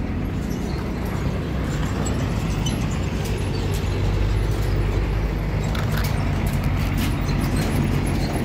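A bus's diesel engine idling with a steady low hum. Scattered light clicks sound over it.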